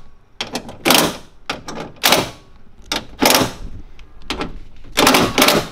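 Cordless impact driver hammering in a string of short bursts, about one a second, as it runs down the 10 mm bolts holding a window regulator to the door panel.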